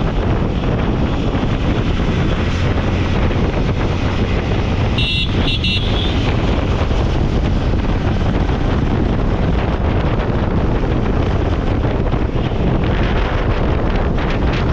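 Wind rushing over the microphone of a moving motorcycle, with the engine and road noise underneath. Two short horn toots sound about five seconds in.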